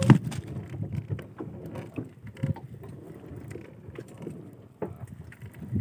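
Small fishing boat at sea: uneven low sloshing and rocking noise, with scattered knocks and clicks, the sharpest right at the start and another about two and a half seconds in.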